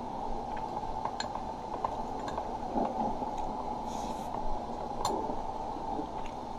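A few light clinks of metal spoon and chopsticks against a rice bowl and plate, over a steady low background hum.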